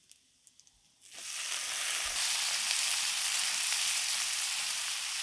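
Sliced bitter gourd and potato hit hot oil in an iron wok and sizzle, starting suddenly about a second in and holding steady: the raw vegetables going into the oil with the fried onion and garlic.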